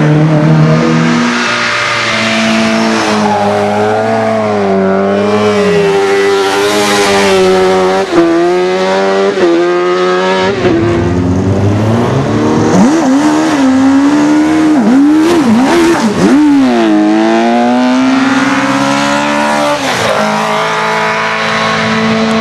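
A competition car's engine driven hard at a motor sprint, revving high and climbing through several gear changes, then rising and falling quickly for a few seconds as the throttle is lifted and reapplied.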